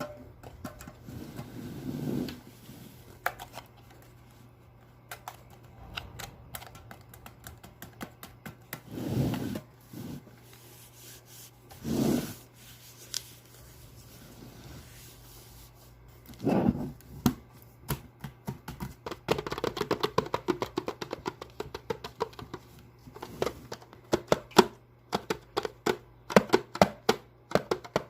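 Fingers handling and tapping a small metal can: a few separate brushing swells in the first half, then quick, dense clicking taps through the second half.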